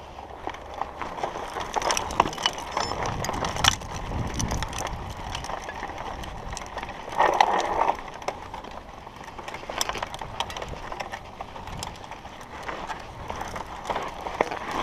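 Mountain bike ridden along a dirt trail: tyres rolling over dirt and stones, with frequent clicks and rattles from the bike over bumps. There is a louder noisy surge about seven seconds in.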